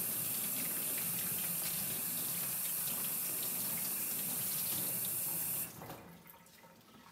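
Hot water running from a faucet into a plastic utility sink, splashing over a wool-wrapped soap bar held under the stream. The flow is steady, then cuts off suddenly near the end, leaving faint wet handling sounds.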